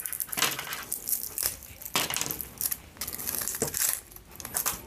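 Aluminium foil shield of a coaxial cable being peeled and torn off by hand, crinkling and crackling in several irregular bursts.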